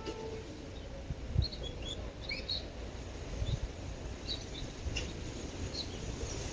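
Small birds chirping in short, scattered calls over a steady low background rumble, with a couple of soft low thumps.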